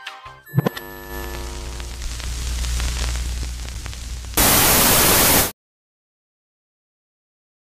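Edited TV-static transition effect: a short jingle ends with a sharp hit, a hiss builds for a few seconds, then loud white-noise static blasts for about a second and cuts off abruptly into dead silence.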